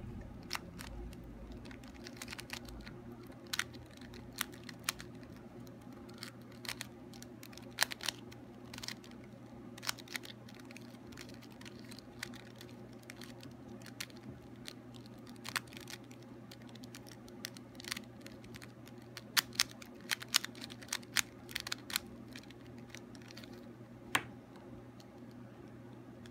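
A small mini 3x3 puzzle cube being solved by hand: its plastic layers turning with irregular clicks and clacks, which come faster in a flurry about three-quarters of the way through. A steady low hum runs underneath.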